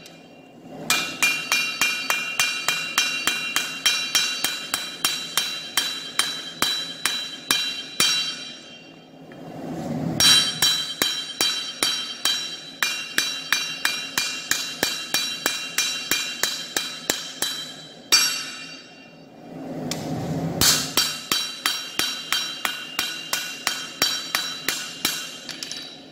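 Hand hammer forging a red-hot Korean nadae blade on a steel anvil: rapid, even blows, each with a high metallic ring, in three runs broken by two short pauses.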